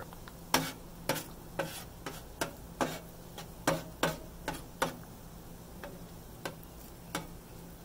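Metal spatula striking and scraping the steel top of a Blackstone griddle as eggs are chopped and scrambled: sharp clicks about two a second, thinning out to a few in the last seconds.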